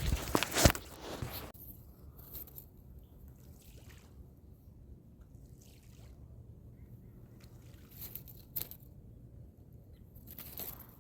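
Water sloshing and trickling with scraping and knocking, loudest in the first second and a half, then faint scattered clicks over a low steady rumble.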